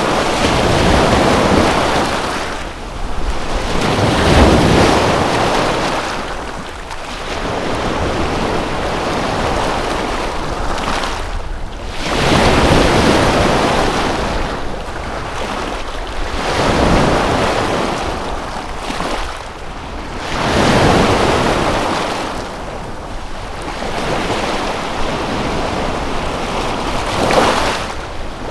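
Lake waves washing in and falling back, a swell every few seconds, with wind buffeting the microphone.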